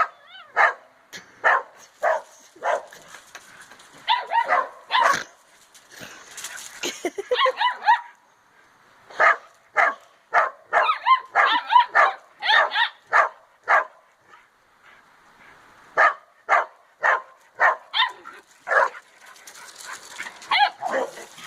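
Puppies barking in quick series of short, high yaps, with a couple of longer gliding whine-like calls and a brief lull about two-thirds through. These are among their first barks.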